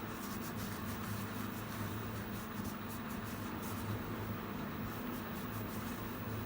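Light, irregular rubbing strokes as the polymer grip of a Glock 43 pistol is wiped clean of gun oil, over a steady low hum.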